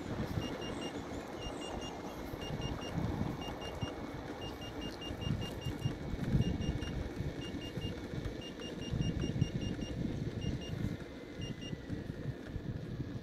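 Electric unicycle beeping a high warning tone over and over, mostly in quick pairs with a few longer fast runs, while the wheel rolls along. Wind rushes in uneven gusts on the microphone, and it is the loudest sound.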